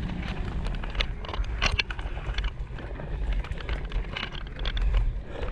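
Riding noise from a road bike on a village lane: a steady low wind rumble on the microphone, with scattered clicks and rattles from the bike.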